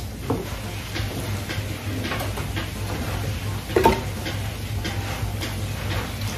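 Kitchen work: scattered small clicks and knocks of utensils and dishes over a steady low hum, with one louder knock about four seconds in.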